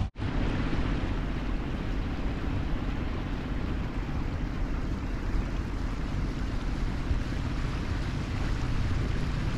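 Sailboat motoring under its engine: a steady low running hum mixed with wind noise on the microphone and water rushing past the hull.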